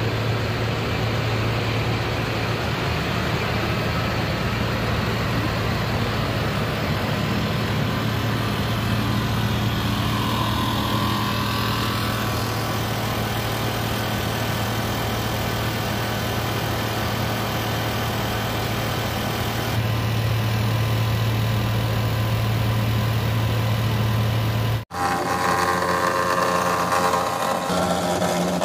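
Engine idling steadily, a constant low hum with a brief dropout near the end, after which the hum comes back with a higher, whinier tone.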